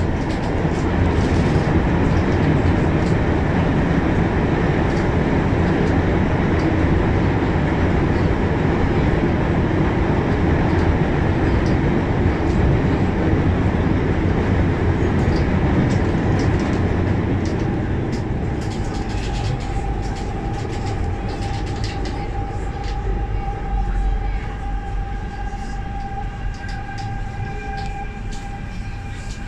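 Guangzhou Metro Line 6 linear-motor train heard from inside the car, running through the tunnel with a heavy, steady rumble. About two-thirds through, the rumble eases and a steady whine of several tones comes in as the train slows into the station.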